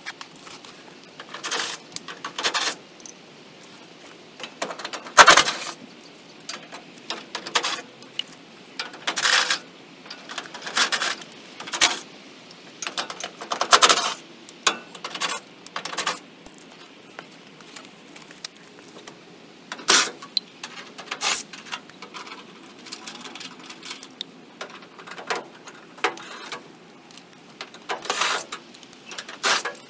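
Hand tools and loose bolts clinking and clanking against the old Chevrolet's steel bumper, grill and fender as the bolts are worked loose. The sharp metallic strikes come irregularly, singly and in short clusters, with quiet gaps between them.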